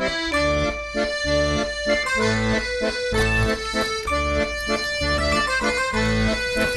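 Accordion-led background music with a steady rhythm of bass notes and chords.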